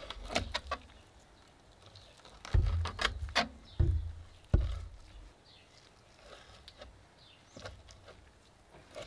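Filleting knife and gloved hands skinning a blue cod fillet on a plastic cutting board: scattered clicks, scrapes and a few dull knocks, mostly in the first half, then quieter.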